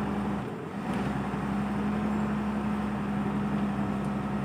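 Caterpillar wheel loader's diesel engine running at a steady pitch, with a brief dip about half a second in.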